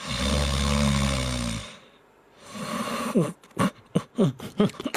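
A low, rasping, snore-like animal sound lasting about a second and a half. After a short pause comes a quick run of short voice-like sounds, each falling in pitch.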